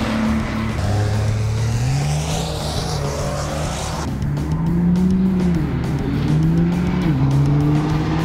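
Turbo-diesel Dodge Ram pickups accelerating hard down a drag strip. The engine pitch climbs, then drops sharply and climbs again twice in the second half as the automatic transmission shifts up.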